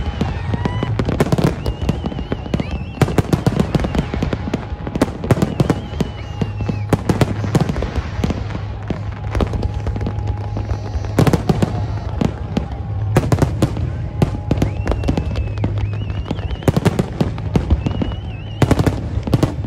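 Fireworks display: aerial shells bursting and crackling in rapid succession, several sharp bangs a second, overlapping without a break.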